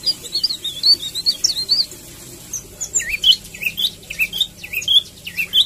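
Caged songbirds chirping: a fast run of short, high chirps for about two seconds, then, after a brief lull, a string of lower, dipping chirps at about two a second that cuts off suddenly at the end.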